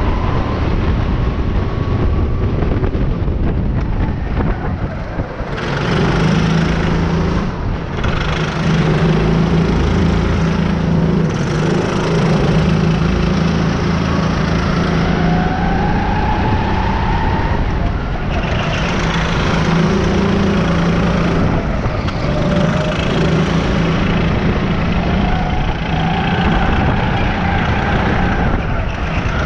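Rental go-kart engine heard from the kart itself, running hard under racing throttle, its pitch rising on the straights and dropping back for the corners several times.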